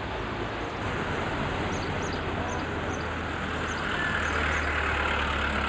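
Steady outdoor street noise, like traffic, heard through a camcorder microphone, with a low hum underneath. It gets louder about a second in.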